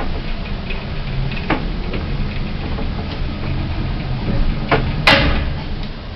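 Passenger lift running: a steady low hum with a few clicks, and a loud clunk about five seconds in.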